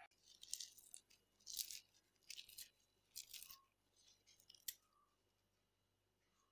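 Faint, short rustling scrapes, about five of them, as a hand mixes coarse-ground green gram dal batter with chopped herbs and chillies in a steel bowl.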